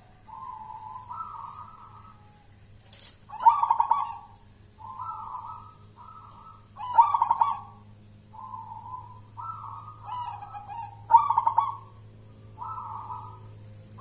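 Local Jolotundo-type perkutut (zebra dove) singing its cooing song: soft paired coos with three louder, rolling notes that come about every three and a half seconds.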